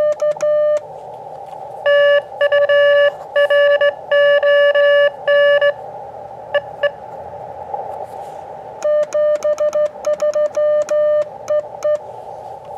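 Morse code (CW) from an Elecraft KX2 transceiver: runs of sharply keyed beeps at one steady pitch, sent on a small paddle key. Between the runs comes the receiver's hiss with faint, weak code in it.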